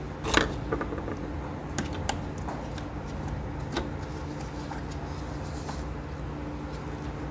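A few sharp clicks and light scrapes of plastic engine-bay hose fittings being pried and handled with a screwdriver, the loudest just after the start, over a steady low hum.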